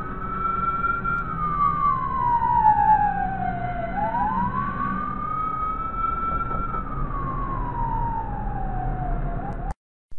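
Ambulance siren wailing over traffic noise. The pitch climbs quickly and then falls slowly, in cycles about four seconds long, and cuts off suddenly near the end.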